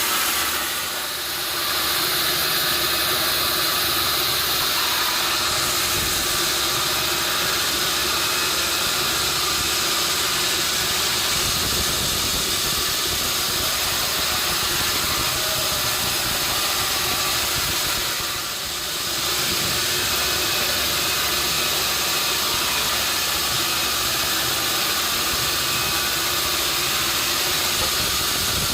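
Sawmill machinery running: steady engine noise with a high hiss over it, dipping briefly twice.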